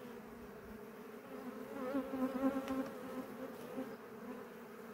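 Honeybees buzzing around an opened hive: a steady hum that grows louder and wavers in pitch for a couple of seconds in the middle.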